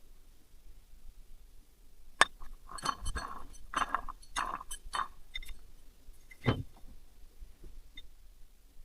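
Small metal parts and hand tools clinking and tapping during hand work on a small engine. A sharp click comes about two seconds in, then a run of ringing metallic clinks and scrapes, and a dull knock about six and a half seconds in.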